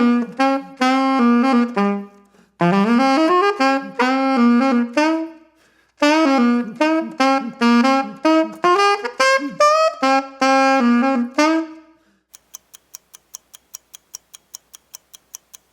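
Saxophone playing three short jazzy melodic phrases with brief pauses between them. About twelve seconds in, the playing stops and a quick, even clock-like ticking follows, a countdown timer running down for the answer.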